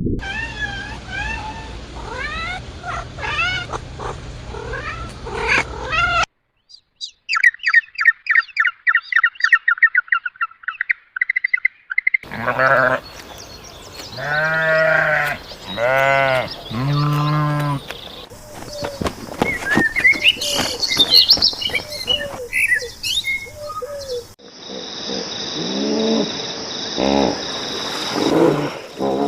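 A run of different animal calls, changing abruptly every few seconds: chirping calls, then a rapid trill, then three long calls that rise and fall in pitch, then more chirps.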